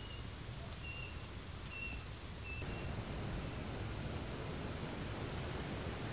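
Outdoor countryside ambience with wind rumbling on the microphone. In the first couple of seconds there are four short, high chirps. From about two and a half seconds in, a steady high-pitched insect whine holds on one note over a hiss.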